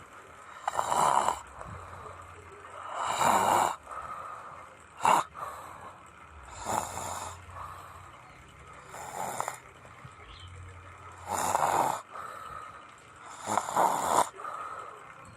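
A person snoring, one snore about every two seconds in a regular sleep-breathing rhythm, a few of them short and sharp like snorts.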